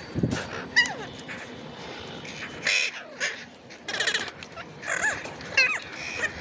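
Ringneck parrot calling: a string of harsh screeches mixed with short whistled chirps, the loudest screeches about three, four and five seconds in.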